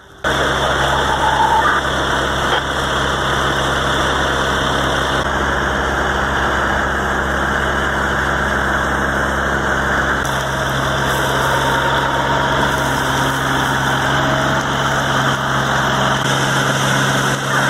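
Fire engine's engine running steadily, driving its pump to supply the hose line, with a steady hiss over it.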